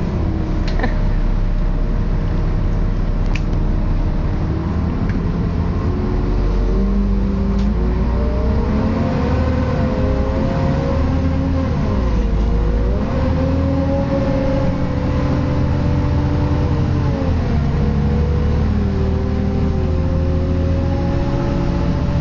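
Wright StreetCar articulated bus on a Volvo B7LA chassis, heard from on board: an odd wailing that slides slowly up and down in pitch over a steady low engine rumble. The uploader thinks it may be a cooling fan fault.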